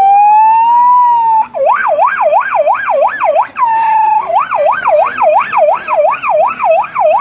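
A man imitating an ER24 ambulance siren with his voice. A slow wail rises for about a second and a half, then breaks into a fast yelp swinging up and down about two and a half times a second, with a brief held note near the middle.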